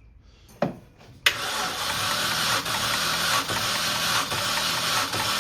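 2006 Mini Cooper R53's supercharged four-cylinder engine being cranked over on the starter motor for a compression test. One click comes just before the cranking begins suddenly about a second in, and the cranking then runs on steadily.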